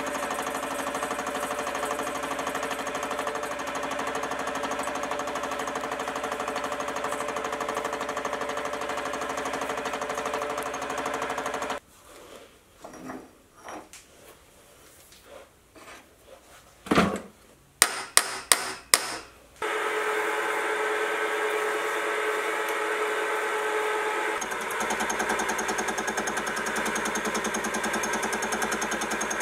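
Mini vertical mill running a carbide fly cutter on a facing cut across a cold-rolled steel bar, a steady machine whine with several held tones. About 12 seconds in it stops. The steel bar is then handled with a few knocks and a quick run of sharp metallic clicks. The mill runs again from about 20 seconds in, and its sound changes a few seconds later.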